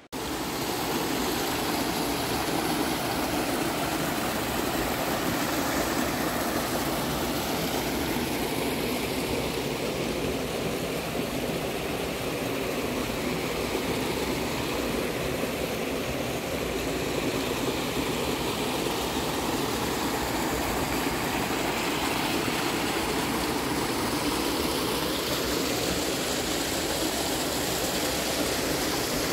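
Steady rushing noise of a mountain stream flowing over rocks, unchanging throughout.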